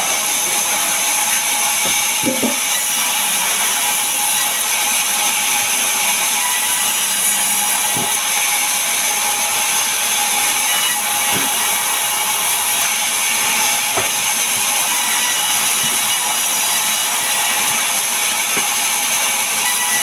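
Sawmill band saw running steadily and cutting lengthwise through a log, a loud high-pitched whine and hiss. There are a few short knocks along the way.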